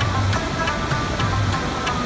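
Rabab music: quick plucked notes of a melody over low bass notes, with the steady rush of a waterfall underneath.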